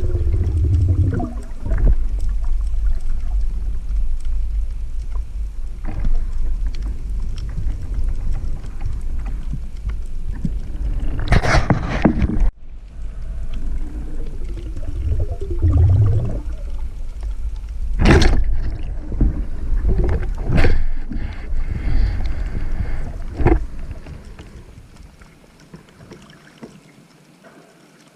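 Water gurgling and sloshing against a camera in shallow water, over a steady low rumble, with several sharp splashes or knocks; the sound cuts abruptly about midway and fades away near the end.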